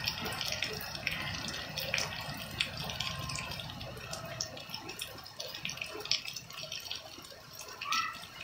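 Heavy rain falling on wet paving stones and splashing into puddles: a steady hiss full of individual drop splashes, easing slightly about halfway through.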